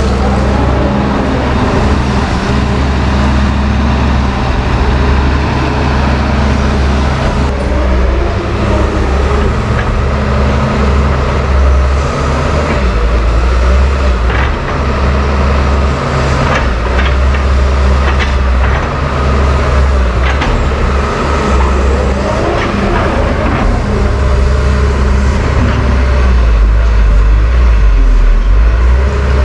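Doosan DX140W wheeled excavator's diesel engine running steadily close by while it works, with scattered metallic clanks and knocks from the machine handling rubble and soil. The engine gets a little louder near the end.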